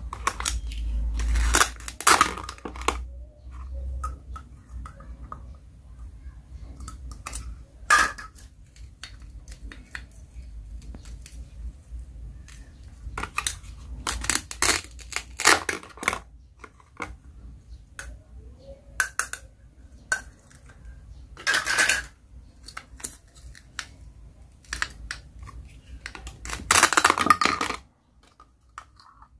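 Toy plastic fruit and vegetables being cut with a plastic toy knife on a plastic cutting board: clicks and clacks of hard plastic, with several short rasping rips as the halves, held together by hook-and-loop pads, are pulled apart.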